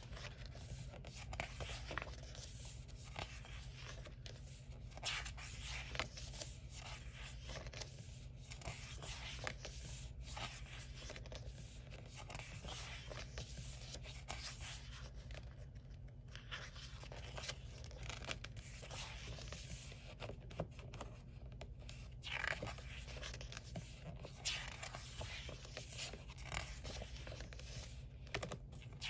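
Pages of a hardcover sticker book being turned and smoothed by hand: repeated papery swishes and rustles, with a few sharper page flips, over a faint steady low hum.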